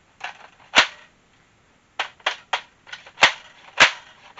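Orange Nerf Elite 10-round plastic magazine knocking against the magazine well of a Nerf M41A Pulse Rifle in a series of sharp, uneven plastic clacks as it is pushed in. The magazine will not seat: it does not work in this blaster.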